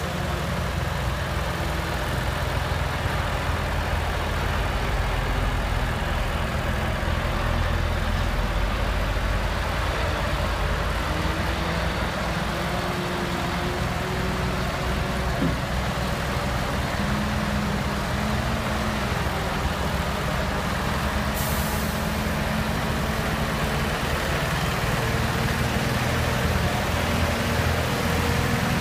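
Scania R730's V8 diesel engine running at low speed as the tractor unit pulls a very heavy abnormal load, its note slowly rising and falling. A brief hiss of air about three-quarters of the way in.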